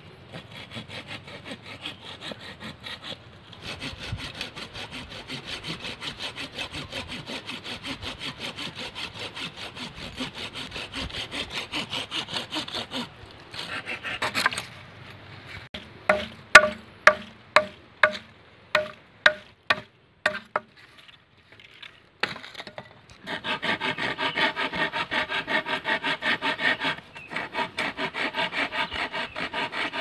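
Small hand saw cutting through a wooden branch with rapid, even back-and-forth strokes. Midway the sawing stops for a run of about ten sharp machete chops into the wood, roughly two a second, and then the sawing starts again.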